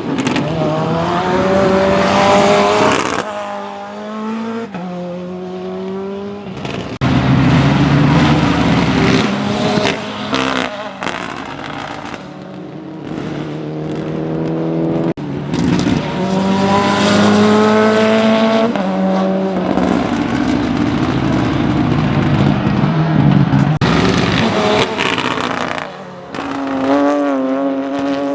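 Ford Escort RS WRC rally car's turbocharged four-cylinder engine revving hard, its pitch climbing repeatedly through the gears and dropping at each shift and lift, over several passes.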